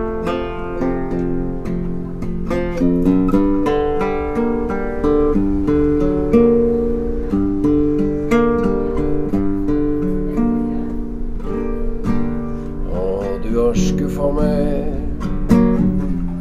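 Nylon-string classical guitar played in steady strummed chords, an instrumental break between sung verses.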